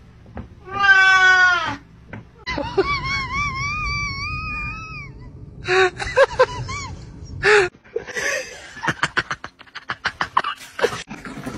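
A cat's loud, drawn-out meow, then a dog howling with a wavering pitch and giving a few short yelps, then a person laughing hard in quick bursts.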